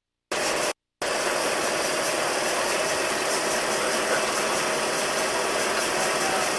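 REED SOVA gunite machine and its 375 cfm air compressor running: a steady, even, noisy din. It comes in with a short burst that cuts off, then starts steadily about a second in.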